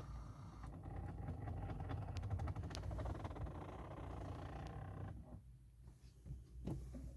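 Ford Mondeo Mk4 that will not start, making a rapid mechanical ticking instead of the engine turning over and firing. It stops suddenly about five seconds in, followed by a few separate clicks.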